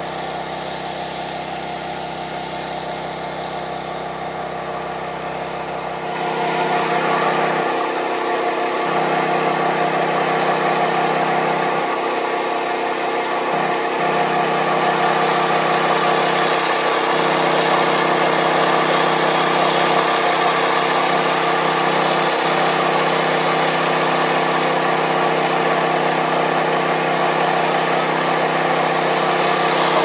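A small engine running steadily at an even speed, getting louder about six seconds in and then holding steady.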